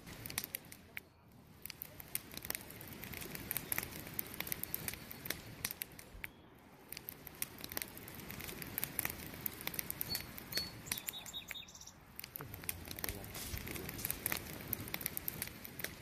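Wood campfire crackling, with a steady hiss of burning logs and many sharp pops throughout.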